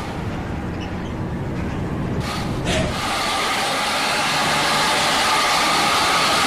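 Road noise of a large tour bus approaching: engine rumble and tyre rush growing steadily louder, with two brief sharper sounds a little before the midpoint.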